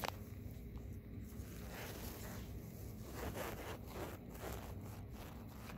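Handling noise from a phone being moved about: a sharp click at the very start, then a run of soft rustling and scraping sounds.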